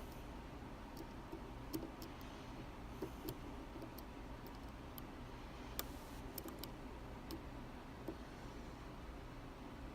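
Faint, irregular small metallic clicks of a flag pick working the pins inside an Abus D10 dimple lock's keyway, about ten ticks spread unevenly.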